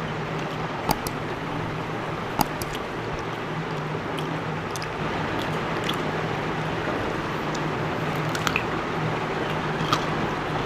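People eating rice and fish by hand: soft squishing and chewing, with a few small clicks, over a steady hiss and a faint low hum.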